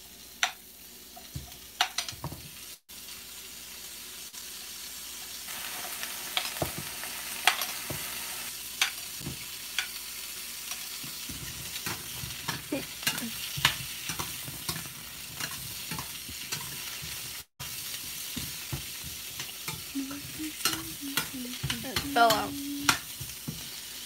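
Kabocha squash, onion and garlic frying and sizzling in a stainless steel skillet while being stirred, with frequent sharp clicks and knocks of the stirring against the pan. The sizzle grows louder about five seconds in.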